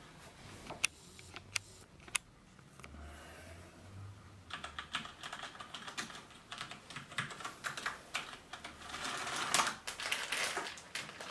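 Typing on the Cougar 700K's Cherry MX Black mechanical key switches. A few separate key presses come in the first two seconds, then rapid, continuous keystrokes from about four and a half seconds in, without the springy clack of clicky switches.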